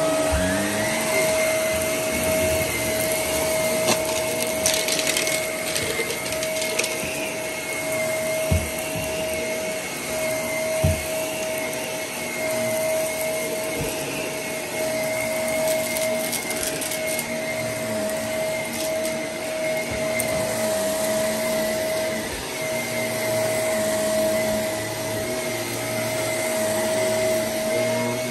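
Shark upright vacuum cleaner running on shag carpet, a steady motor whine that settles to full speed in the first second. A couple of dull knocks come in the middle as it is pushed over the carpet.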